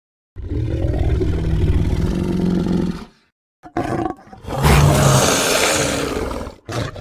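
Sound-effect roars of a fictional Primeval creature: a deep, rumbling roar for about three seconds, two short calls, then a louder, harsher roar lasting about two seconds, and a brief call near the end.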